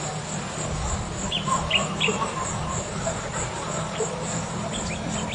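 Riverside nature ambience: insects trilling in an even, high pulsing rhythm of about three pulses a second, with a few short bird chirps in the middle and a steady low murmur underneath.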